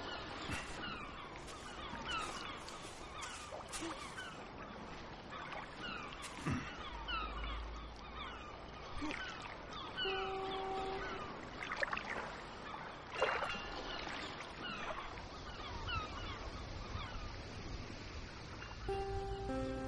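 Many birds calling at once: a dense, overlapping chatter of short falling calls. A couple of plain held tones sound briefly about halfway through, and more come in near the end.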